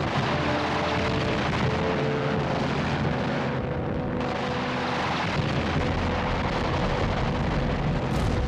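Steady, loud rumble of heavy engine noise, dense and unbroken, with faint held tones underneath.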